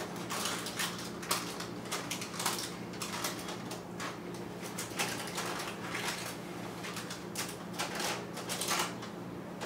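Spatula scraping and tapping in a parchment-lined baking dish while a sticky layer of sweetened condensed milk is spread into the corners: irregular short scrapes and taps, one or two a second, over a low steady hum.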